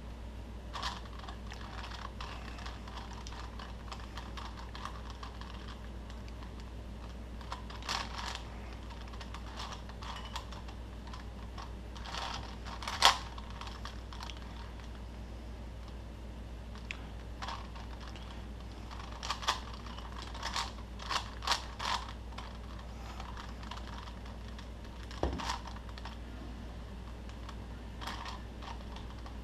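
Rubik's cube being turned by hand: irregular clusters of quick plastic clicks, with the sharpest snap about 13 seconds in, over a steady low hum.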